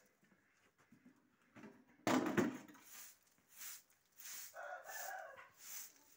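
A straw hand broom sweeping a dusty concrete floor in short swishes, about two a second. A chicken calls loudly about two seconds in and again, more weakly, a little after four seconds.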